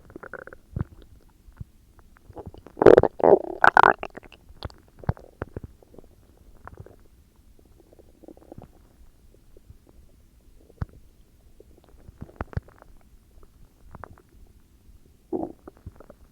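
Human stomach growling: irregular gurgles and squelches, with a loud burst of rumbling about three seconds in and another shorter one near the end.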